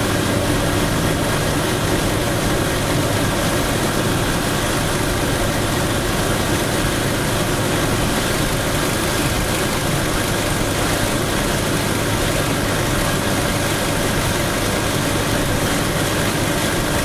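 Steady road and engine noise of a car cruising along a freeway, heard from inside the car.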